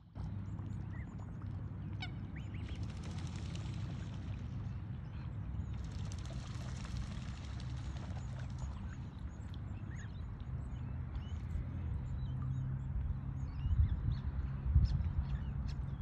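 Black swan and cygnets feeding in shallow water: soft waterfowl calls and dabbling water sounds over a steady low rumble, with a few louder knocks near the end.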